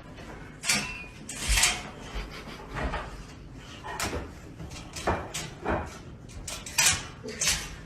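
A series of irregular knocks, bumps and rustles, about eight in all, spaced unevenly.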